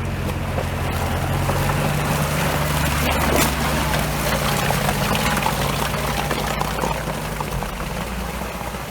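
Off-road 4x4's engine running under load as it ploughs through deep mud, with mud and water churning and splashing around it. The engine note drops a little near the end.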